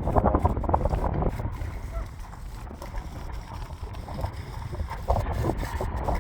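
Wind buffeting the microphone in a steady low rumble, with scattered short crackles in the first second or so and again near the end.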